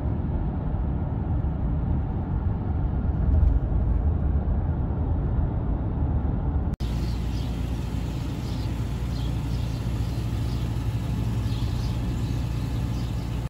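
Steady low rumble of a car's engine and tyres inside the cabin while driving on a highway. About halfway through it cuts abruptly to a steadier low hum of the car's engine with the car pulled up.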